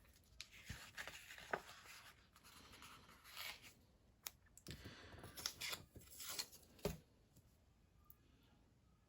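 Sticker sheets and paper being handled, stickers peeled off a backing sheet: quiet rasping peels and rustles with a few sharp clicks, in two spells, the second ending about seven seconds in.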